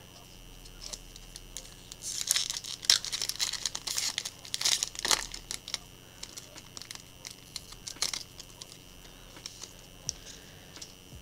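Foil wrapper of a Magic: The Gathering Ikoria booster pack crinkling and tearing as it is opened by hand, with most of the crackle between about two and five seconds in. Lighter rustling and a few small clicks of cards being handled follow.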